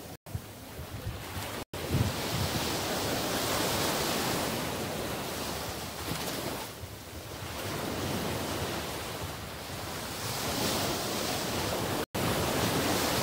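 Small waves breaking and washing up a sandy beach, the surf swelling and easing every few seconds, with wind buffeting the microphone. The sound cuts out for an instant three times.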